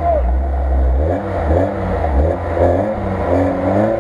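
Lada Niva's engine revving as the 4x4 works through a deep muddy rut, its pitch rising and falling again and again over a deep rumble.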